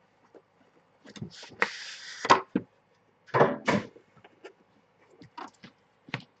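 Handling of trading-card boxes and packaging: a rustling scrape for about a second, then a few knocks and small clicks.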